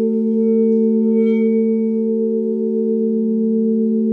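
Alchemy crystal singing bowls sounding together in steady, overlapping held tones that form a chord, one tone pulsing with a slow wavering beat.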